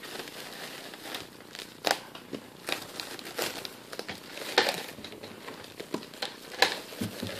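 Plastic kitchen cling wrap pulled off the roll and stretched around a typewriter, crinkling and crackling unevenly, with a few sharper snaps.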